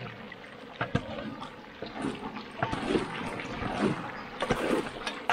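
Metal ladle knocking and scraping against a large cooking pan as pork is stirred: a handful of separate sharp knocks over a steady hiss.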